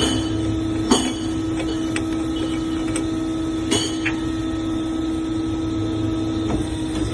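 Metal lathe running with a steady hum and low rumble, with four short sharp metallic clicks at uneven intervals.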